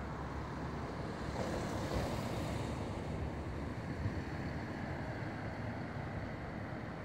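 Wind buffeting the phone's microphone outdoors: a steady, low, rumbling noise that rises and falls slightly.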